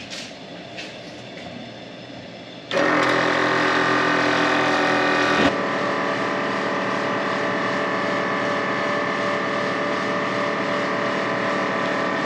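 A few light clicks, then a 12-volt onboard air compressor switches on abruptly about three seconds in and runs steadily, its motor tone dropping slightly about five and a half seconds in as it pumps up toward its 200 psi shut-off.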